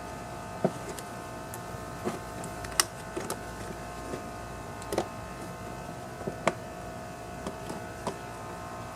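Scattered light clicks and taps of small chainsaw parts being handled and fitted back together during reassembly, over a steady background hum.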